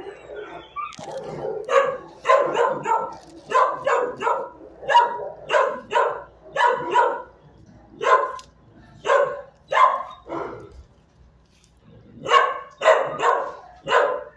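Dogs in shelter kennels barking repeatedly, about two barks a second, with a pause of a second or two near the end before the barking starts again.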